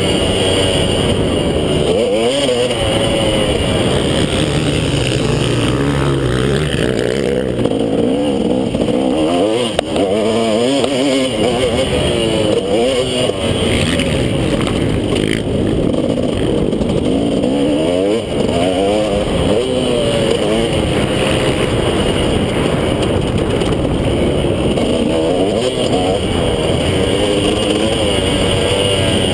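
KTM 250 SX two-stroke motocross bike engine ridden hard, its pitch climbing and dropping again and again with the throttle and gear changes, heard close up from a camera on the bike.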